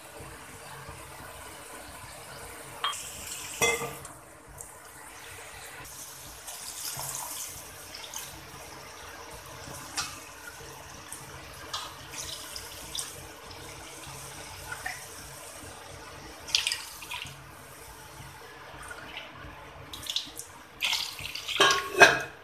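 Water being poured into a kadhai of fried tomatoes and capsicum, a steady watery wash. A metal spatula scrapes and clinks against the pan now and then, most sharply about four seconds in and again near the end.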